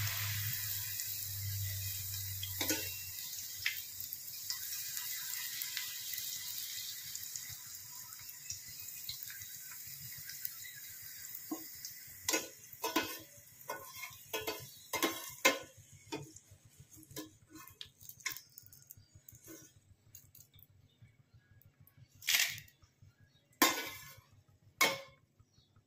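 Urad dal papad pieces frying in hot oil in a steel pan: a hissing sizzle that dies down over the first ten seconds or so. Then a run of clicks and scrapes of a metal slotted spoon against the steel pan as the pieces are turned and lifted out, with three louder knocks near the end.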